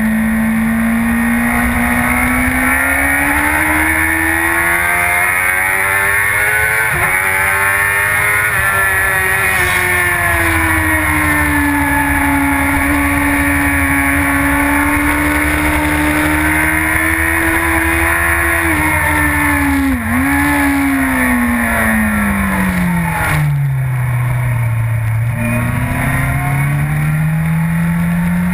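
A superbike's inline-four engine running hard at high revs on a track lap, its pitch swelling and easing through the corners. About two-thirds through there is a quick sharp dip, then the revs fall steeply for a couple of seconds as it slows for a corner, and climb again near the end.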